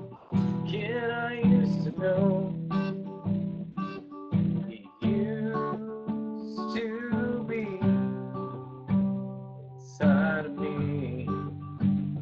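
Music: an acoustic guitar strumming chords while a man's voice sings long, wavering notes without clear words three times, about a second in, in the middle, and near the end.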